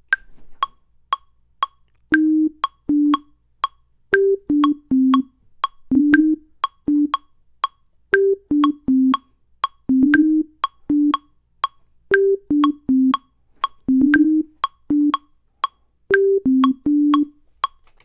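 Ableton Live's metronome clicking about two beats a second, with a brighter accented click on the first of every four, through a one-bar count-in. From about two seconds in, short notes of a simple melody played live on Ableton's Operator synth join the clicks as the part is recorded.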